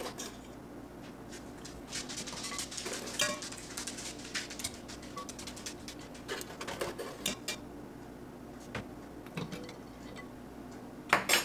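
Hard-boiled eggs being lifted out of a stainless-steel Instant Pot inner pot and set into a glass bowl of ice water: a series of light clinks and knocks of eggs and ice against metal and glass, with a louder cluster near the end.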